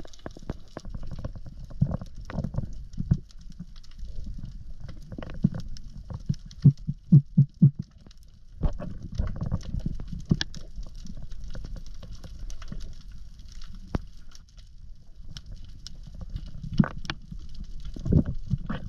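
Underwater sound picked up through an action camera's housing while swimming over a reef: irregular muffled thumps and knocks, with a quick run of five thumps about seven seconds in. A faint high crackle runs underneath.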